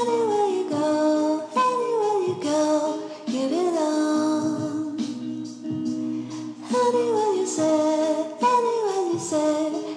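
Background music: a pop song with a singing voice that glides between notes, over an accompaniment with no bass.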